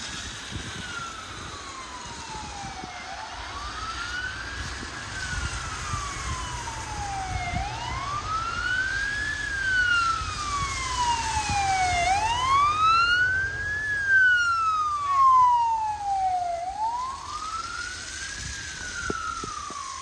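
Emergency vehicle siren on a slow wail, rising quickly and falling slowly in cycles about four and a half seconds long, growing louder toward the middle and then fading as the vehicles pass. A low rumble of traffic runs underneath.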